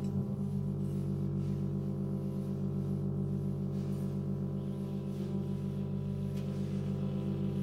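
Live jazz: a held low ringing drone with overtones, pulsing steadily and rapidly, between saxophone passages.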